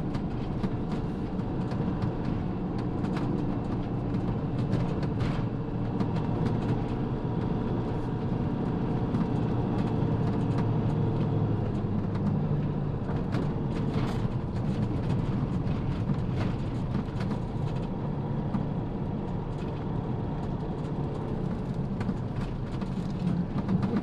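Motorhome cab noise while driving: a steady engine and tyre drone, with a few short knocks and rattles from bumps in the road.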